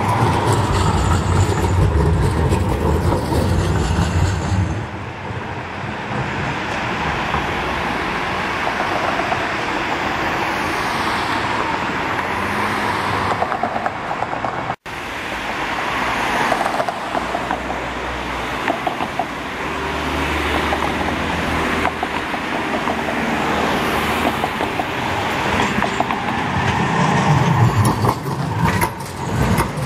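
City street traffic with trams running by, a steady mix of tram and road-vehicle rumble. The sound breaks off for an instant about halfway through and picks up again on a new shot.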